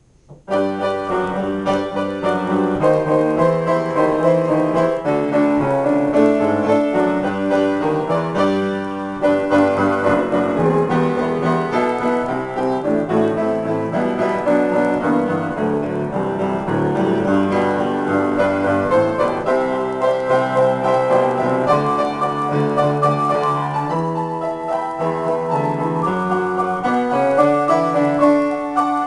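Grand piano played as a free improvisation, chords and melody moving continuously, starting about half a second in.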